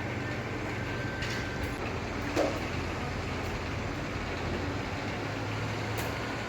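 Steady low mechanical hum with one short knock about two and a half seconds in.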